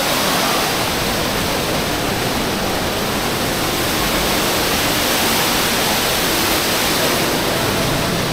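Steady rushing of the Rain Oculus, an indoor waterfall in which water pours from a glass bowl in the ceiling down into a round pool below.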